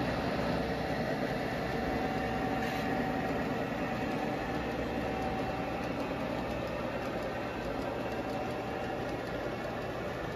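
Model train running along the layout track: a steady running hum with a faint steady whine.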